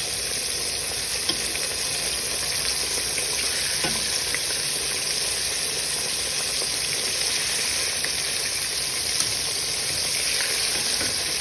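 Small bream (bluegill) sizzling and crackling in a pan of hot grease, a steady frying sound with a few faint clicks and taps as the fish are turned.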